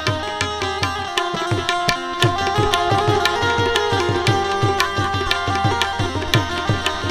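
Instrumental interlude of a Gujarati bhajan: tabla plays a quick rhythm of bass strokes that drop in pitch, about four a second, under a held harmonium melody.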